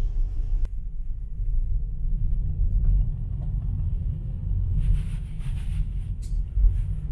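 Steady low rumble of a car driving in slow town traffic, heard from inside the car.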